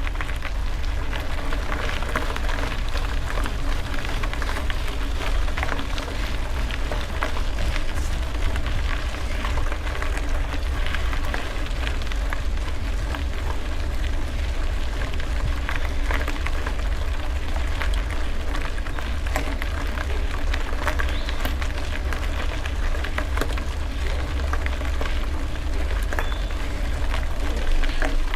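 Gravel bicycle riding: steady crackling of tyres on loose gravel and rattling, under a constant low wind rumble on the microphone.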